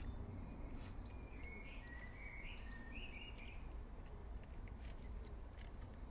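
A cat chewing wet shredded chicken, with small wet clicks from its mouth. A bird calls a short run of chirps between about one and a half and three seconds in, over a low background rumble.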